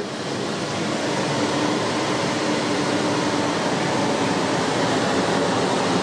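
COLZER commercial dehumidifier running at first power-up, its fan blowing a steady rush of air with a faint steady hum underneath, a racket that builds slightly in the first second and then holds level.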